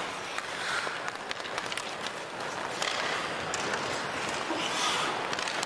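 Ice hockey arena sound during play: a steady crowd hubbub with skate blades scraping the ice and scattered sharp clicks of sticks on the puck.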